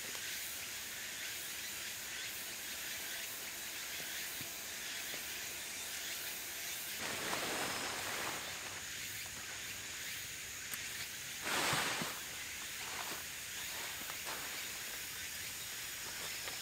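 Tent canvas and a nylon groundsheet rustling as they are handled, in two louder bursts: one about halfway through and a stronger one later. A steady high outdoor hiss lies underneath.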